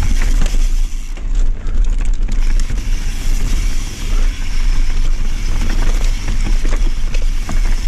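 Mountain bike descending a steep, chunky rocky trail, heard from an on-board action camera: a heavy low rumble of wind and ground noise, with the tyres crunching over dirt and rock and frequent small knocks and rattles from the bike.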